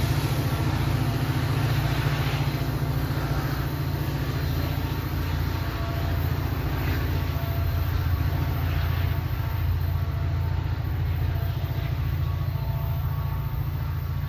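NJ Transit diesel locomotive's engine running with a steady low rumble as the train pulls away, fading slightly near the end.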